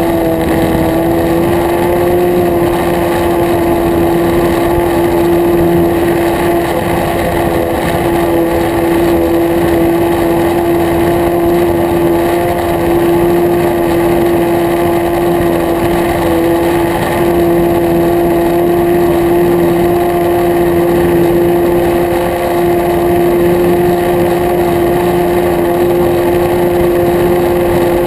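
Nitro glow-fuel engine of an RC model airplane running steadily at a constant high pitch in flight, heard up close from a camera mounted on the plane.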